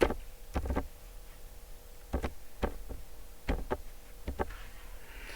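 A computer mouse clicking, about nine sharp clicks spread over several seconds, several coming in quick pairs, over a faint steady hum.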